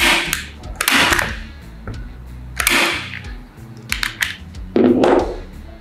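Mollar 28014144B 5-in-1 manual staple gun firing staples into a wooden block: a series of sharp snaps, one every second or so.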